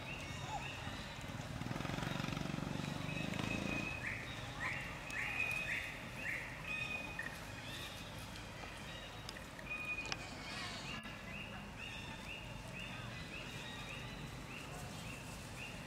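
Short high-pitched animal calls repeated about twice a second, in two runs, the first run falling in pitch with each call; a low rumble underlies the first few seconds.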